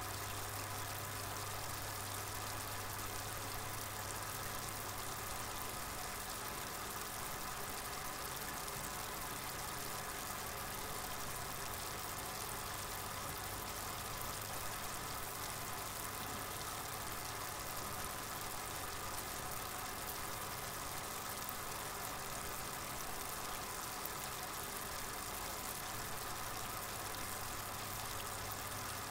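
A steady low hum with a constant hiss behind it, unchanging throughout.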